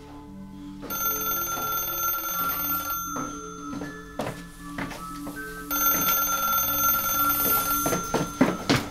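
Eerie horror film score: layered, sustained high ringing tones over a low drone, which swell in about a second in. Sharp hits land in the middle and cluster near the end.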